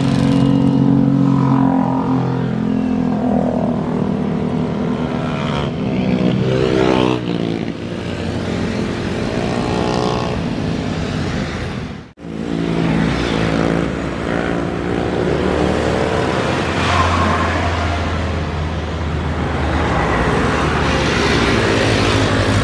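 Jet airliner engines running on the runway, with whining tones that shift in pitch: first an Airbus A320-family jet rolling along the runway, then, after an abrupt cut about halfway, an Airbus A350's Rolls-Royce Trent XWB engines as it taxis.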